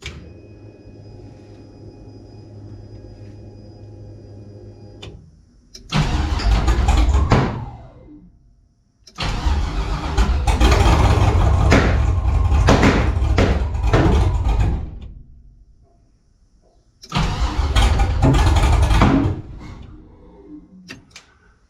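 An LS V8 swapped into a 1984 Cutlass, on a new Holley Terminator X EFI, cranks three times: briefly, then for about six seconds with popping through it, then briefly again. It does not settle into running, the sign of an engine that won't start. Before the first crank comes a steady electric hum, the fuel pump priming.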